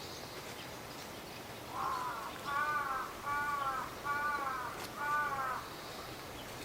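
A crow cawing five times in a row, about a second apart, each harsh call falling slightly in pitch.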